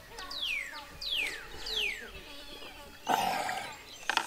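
A bird calling a run of falling whistled notes, one about every 0.7 seconds. About three seconds in, a short, loud noisy burst follows, then a few sharp clicks near the end.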